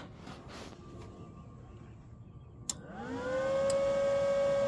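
Arccaptain MIG200 inverter welder powering up: a click nearly three seconds in, then its cooling fan spins up, a whine rising in pitch for about a second and then holding steady.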